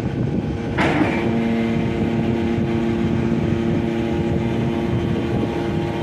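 YD1600A hydraulic scrap metal baler running with a steady mechanical drone. A metal clank comes about a second in, then a steady multi-pitched hum from the hydraulic drive while the press lid moves under power.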